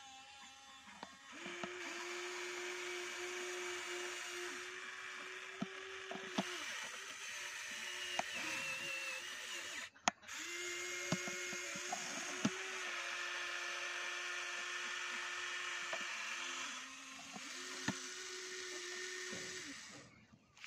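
Electric motors of a Huina remote-control excavator whining steadily as the boom and bucket move, stopping and starting again in several long runs. Small clicks and knocks of dirt and stones sound now and then.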